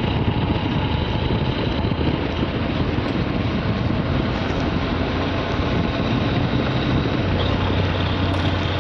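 Steady ride noise of a motorised bicycle on a gravel road at about 30 km/h, picked up by a lav mic inside a helmet cheek pad: dense wind and road rush with a steady low motor hum that grows stronger about seven seconds in.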